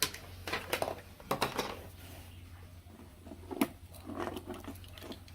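Handling noise: a scatter of small clicks and rustles, with one sharper click past the middle.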